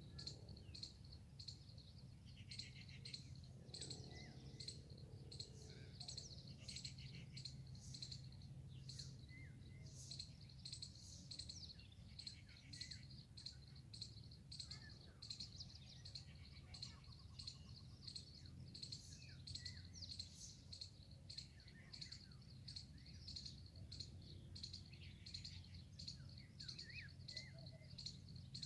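Faint outdoor ambience: a steady high-pitched insect trill with many short bird chirps scattered throughout, over a low steady hum.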